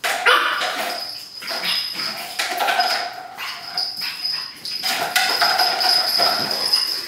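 Three-month-old pug puppy whining and yipping in play, in short repeated high calls. Scattered clicks and knocks run through them.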